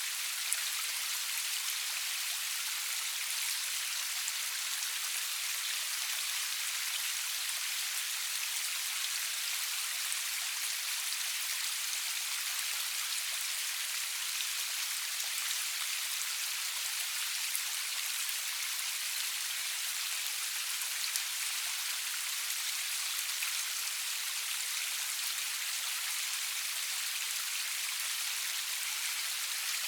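Steady rain falling, a dense even hiss of drops with faint scattered individual drop ticks.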